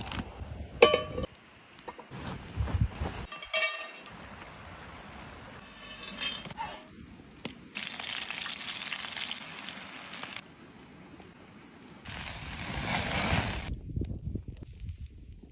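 A string of short outdoor cooking sounds: a couple of sharp clinks that ring briefly, then two stretches of steady sizzling, as of food cooking on a hot stone.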